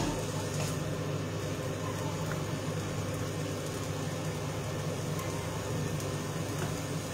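Steady low motor hum of a kitchen range hood's extractor fan running over the stove.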